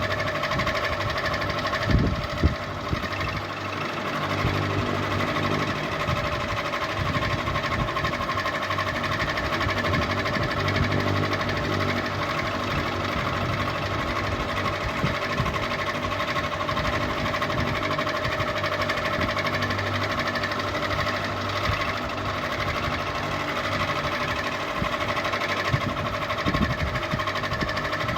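Ceiling fan running: a steady mechanical hum with a constant whining tone, with a couple of short knocks about two seconds in and another near the end.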